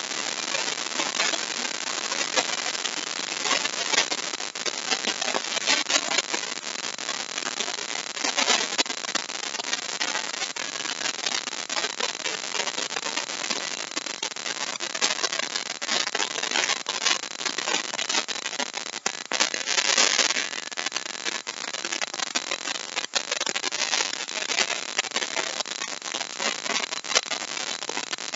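Compact trim router running and cutting a deep mortise in wood: a steady rushing noise with a fine crackle of chips being cut. It gets louder for a moment about eight seconds in and again about twenty seconds in.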